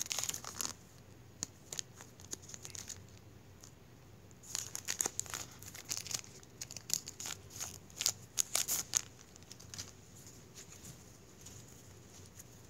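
Foil wrapper of a Pokémon BREAKpoint booster pack crinkling and tearing in the hands, in crackly bursts: a flurry at the start and another from about four and a half to nine seconds in, then only faint handling.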